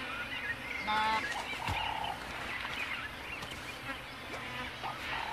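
Wild bird calls: many small chirps throughout, a short, loud call about a second in, and a buzzy call just after it.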